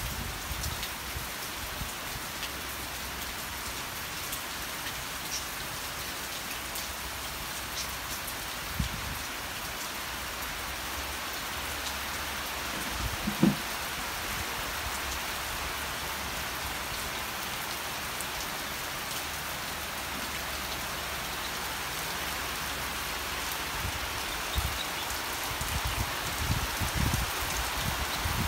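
Steady rain falling on the ground and vegetation, an even hiss throughout. There is one short low thump about halfway through and a few low bumps near the end.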